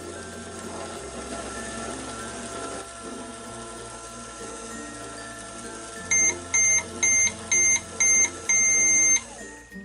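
Microwave finishing its cycle with a beeper: five short loud beeps and then one longer beep near the end, over background music.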